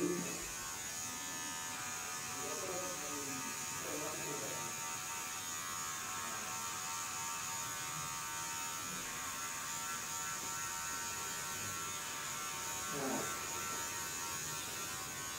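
Steady electric buzz of a small motor running without a break, with faint voices in the background twice.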